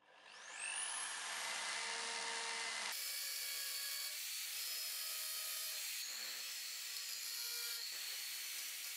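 Bosch corded drill, mounted in a homemade drill-press stand, spinning up with a rising whine and then running steadily as its bit bores into a piece of plywood. The sound changes abruptly about three and six seconds in.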